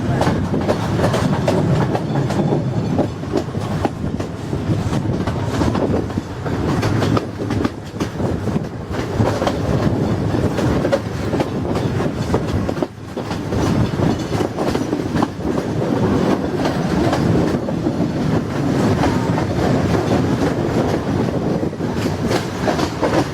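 Train running along the track, its wheels clattering over the rail joints in a steady, continuous rumble, with a brief lull about thirteen seconds in.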